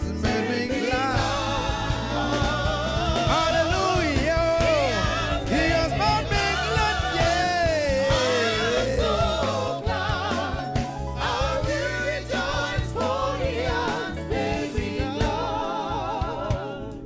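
Live gospel worship music: a male lead singer sings long, wavering, sliding lines over a steady instrumental backing. The music thins out near the end.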